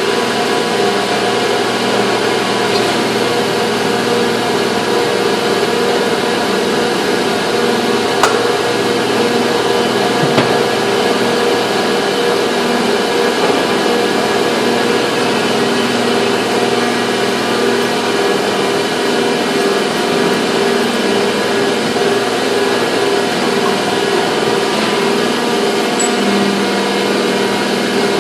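Steady, loud drone of running factory machinery, a hum of several fixed tones, with a few light clicks or knocks over it.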